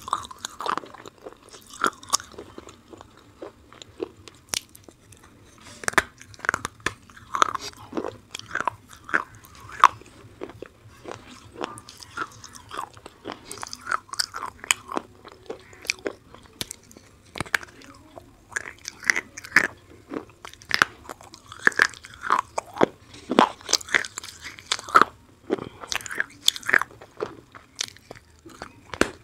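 Close-miked biting and chewing of a hard, chalky piece, with sharp crunches coming irregularly throughout.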